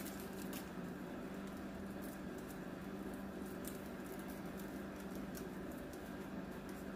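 Faint handling noises from the trail camera's small adapter cords: soft rustling and a few light ticks, over a steady low hum.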